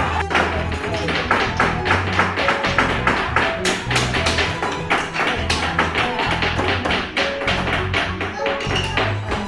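Background music with a steady bass line, over many quick, irregular hammer taps: children hammering nails into wood.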